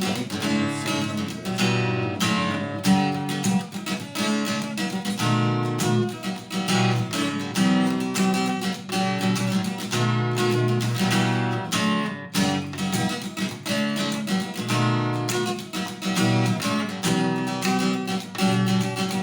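Acoustic guitar strummed in a fast, rhythmic chord pattern, the strokes damped with the heel of the palm, with a brief stop about twelve seconds in.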